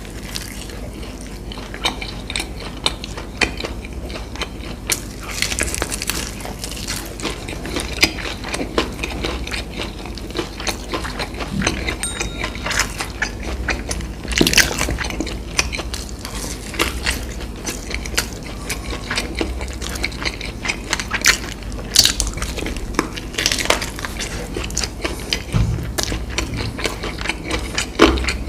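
Close-miked ASMR eating sounds: biting and chewing crunchy fried fast food, with many irregular crisp crunches and crackles.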